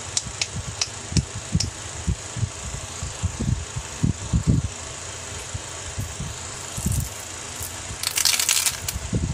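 Hands handling plastic toys over a plastic toy bathtub, with soft knocks and bumps throughout and a few light clicks in the first two seconds. About eight seconds in, candy-coated sweets rattle as they are dropped into the tub.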